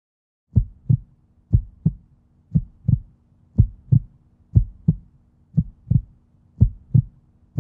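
Heartbeat sound effect: paired low thumps, lub-dub, about once a second over a faint steady low hum, starting about half a second in.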